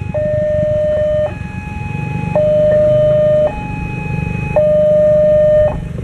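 Railway level-crossing alarm sounding its plain two-tone warning: a low tone and a higher tone alternate, each held about a second. The alarm signals that a train is approaching and the barriers are closing.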